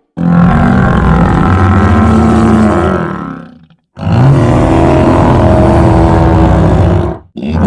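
Two long, loud monster roars of about three seconds each, deep and rumbling, with a third starting near the end. This is a designed creature sound effect mixed from dinosaur and other animal roars.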